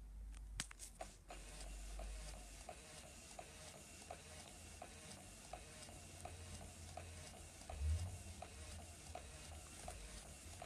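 Halloween animatronic figure's motor mechanism running: faint, even clicking about three times a second over a low hum, with one dull thump near the end. The figure plays no voice or sound effect because its speaker is blown out.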